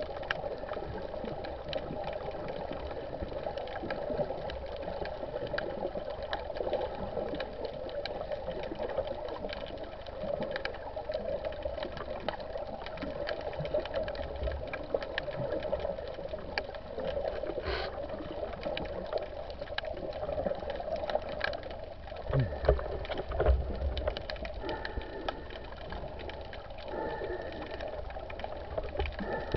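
Underwater sound heard through a camera housing: a steady hum with constant fine crackling and clicking. A few louder low thumps come about three-quarters of the way through.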